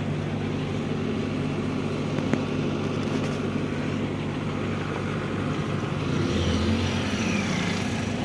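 Heavy diesel engine running steadily at idle, with a deeper hum swelling about six seconds in.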